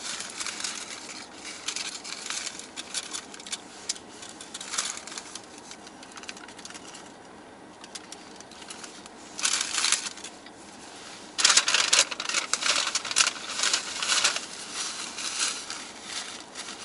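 Paper food wrapper of a Taco Bell order crinkling and rustling in bursts as it is handled, with bites and chewing, in a car cabin. The loudest crinkling comes in the second half.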